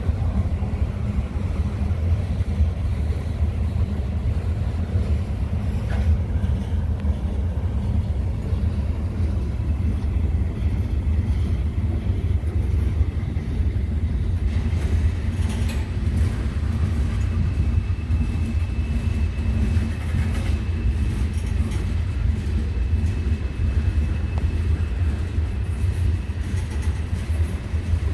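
Freight train running past with a steady, heavy low rumble from the locomotives and cars. A faint, steady high tone joins in past the middle.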